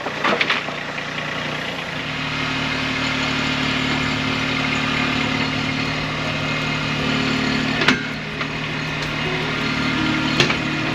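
Kubota B2301 tractor's three-cylinder diesel running steadily while working the BH70 backhoe, its note settling into a steady hum about two seconds in. Two sharp knocks stand out, about eight seconds in and near the end.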